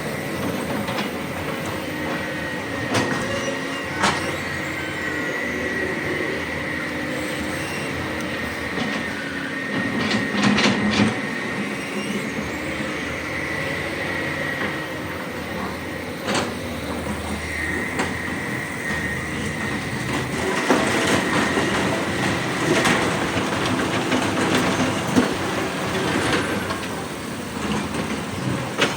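Hydraulic excavator working rock in a quarry: the diesel engine runs steadily under load with a high steady whine, and sharp metallic clanks and knocks sound at irregular moments, several in a cluster about a third of the way in and more near the end.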